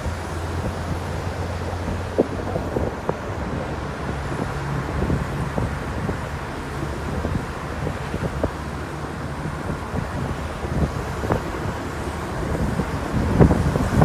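A car driving along a road: a steady low engine hum and tyre noise, with a few light knocks scattered through.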